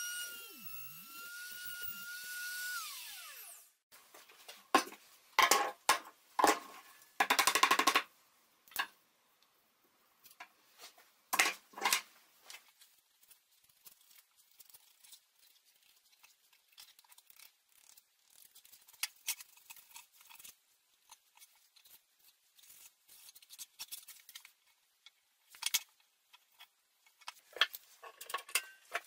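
A handheld wood router whines steadily as it cuts, then spins down about three seconds in. A run of loud wooden knocks and a short rattling clatter follows, then faint scraping and handling sounds. Near the end comes a quick series of clicks from a one-handed bar clamp being squeezed tight.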